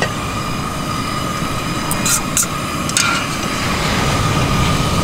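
Camp stove burner running under a pot of rolling boiling water, a steady rumbling hiss, as rice noodles go into the pot. A few light metallic clinks come around the middle, from stainless steel chopsticks against a steel bowl.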